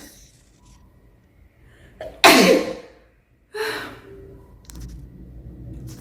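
A person sneezing, set off by a nasal swab: a quick breath in, then a loud sneeze about two seconds in, followed about a second later by a second, shorter one.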